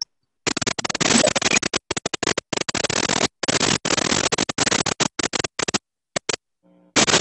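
Harsh crackling noise on a video-call microphone, coming in dozens of rapid bursts that cut in and out abruptly as the call's audio gating switches. A brief steady buzz sounds near the end.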